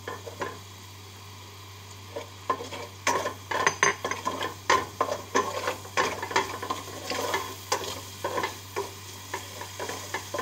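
Diced onions sizzling in hot oil in a stainless steel pot while a black slotted spatula stirs them, scraping and knocking against the pot in quick, irregular strokes that become busy from about two and a half seconds in.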